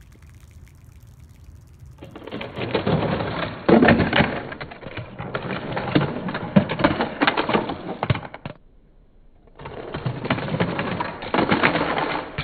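Small toy cars rattling down a plastic ramp track and clattering onto a wooden floor: a dense run of clicks and knocks starting about two seconds in, a pause of about a second, then a second run.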